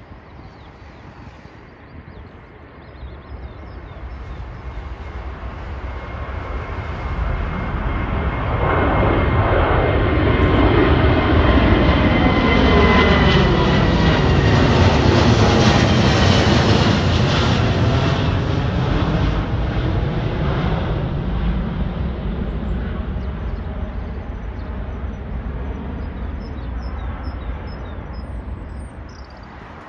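British Airways Boeing 787's twin Rolls-Royce Trent 1000 turbofans at takeoff power as the airliner climbs out and passes overhead. The jet noise builds over several seconds, is loudest in the middle with a whine falling slightly in pitch, then fades as the plane climbs away.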